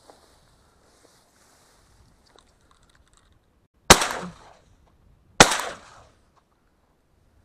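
Shotgun fired twice at a flushed duck, about a second and a half apart, each shot a sharp crack that trails off in a short echo.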